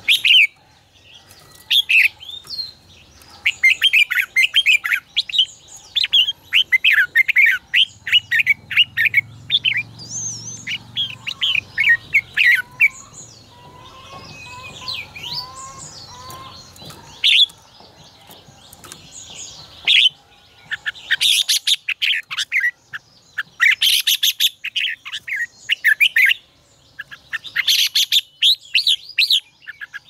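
Red-whiskered bulbuls in full, excited song: short bursts of quick, chirpy warbled phrases, repeated again and again with brief pauses between.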